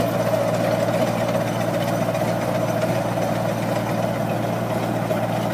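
Tractor engine running at a steady pitch, driving a rear-mounted rotary ditcher that cuts a trench through soil.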